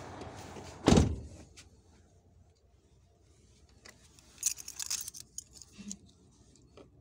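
Truck cab door shutting with one heavy thump about a second in, after which the steady outside noise drops away. A few seconds later comes a short run of light plastic clicks and rattles, then a soft knock.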